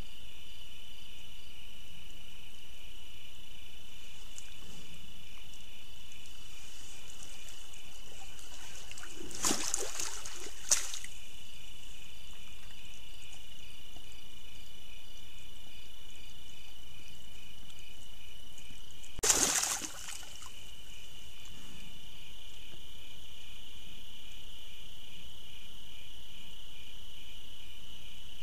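Steady, high chorus of night insects, with a black bear splashing in the water of its wallow twice, about ten and twenty seconds in.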